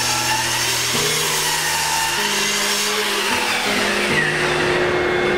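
Background music with a stepping bass line, and a mitre saw's motor running under it. The saw's noise dies away about three-quarters of the way in.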